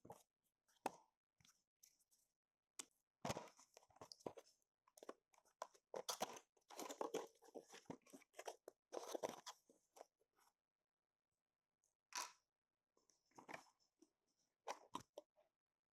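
Retail packaging of an AMD Ryzen 5 5600X processor being handled and opened: cardboard and plastic crinkling and rustling in irregular bursts with small clicks, busiest in the middle and pausing for a couple of seconds before a few last rustles.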